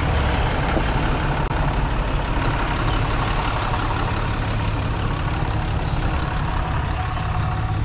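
Four-wheel drive's engine running steadily, with an even low hum under a constant wash of vehicle noise.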